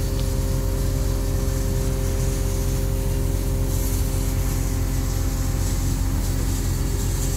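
Steady drone of an engine or machine running at constant speed, a low hum with a hiss above it.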